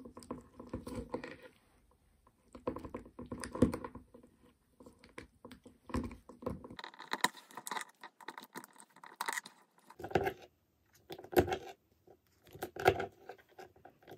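Chunks of slimy blue gel being squeezed and pulled apart by gloved hands, with wet crackling and clicking in irregular bursts.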